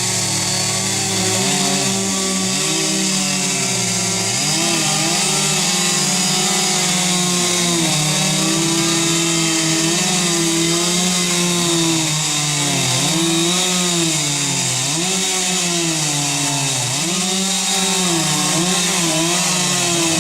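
Chainsaw running at high revs and cutting wood, its engine note dipping repeatedly as the chain bogs down in the cut and recovering between cuts.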